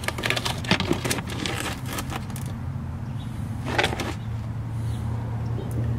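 Wrenches clinking and rattling against the oil drain hose's fitting and cap as the loosened cap is worked off: a quick run of clicks over the first two seconds or so and another short one about four seconds in, over a steady low hum.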